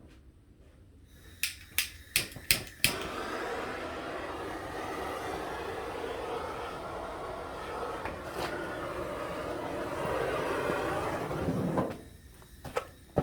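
A few sharp clicks, then an aerosol spray can sprayed in one long steady hiss of about nine seconds, stopping shortly before the end.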